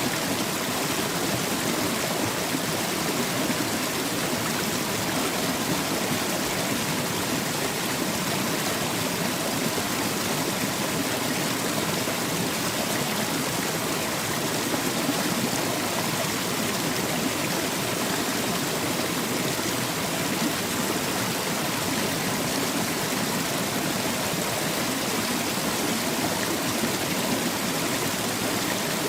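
Small waterfall heard up close: water splashing and rushing over rocks in a steady, unbroken wash.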